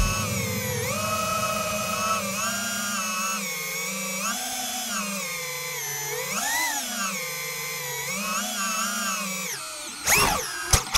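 Brushless motors and propellers of an FPV quadcopter with Brother Hobby Avenger V3 motors, whining with several tones that rise and fall together as the throttle changes. Near the end there is a quick sharp rise and fall in pitch, then a click, and the sound cuts off suddenly.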